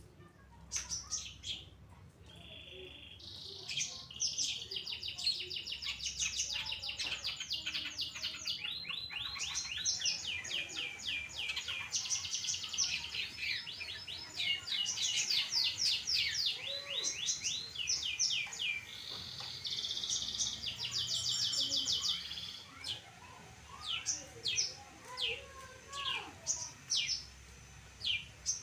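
Long-tailed shrike (cendet) singing: long, fast trills of rapid downward-slurred notes that start a few seconds in and run for about twenty seconds, then break into separate short chirps.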